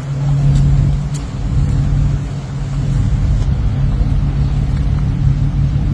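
Steady low rumble and hum of a car's engine and road noise.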